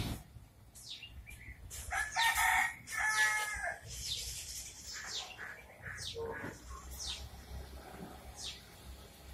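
Animal and bird calls: a loud two-part call held at a steady pitch about two seconds in, and short high chirps that fall in pitch, repeating every second or so.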